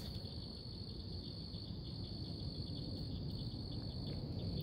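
Crickets chirring in a steady, unbroken high-pitched chorus over a faint low rumble.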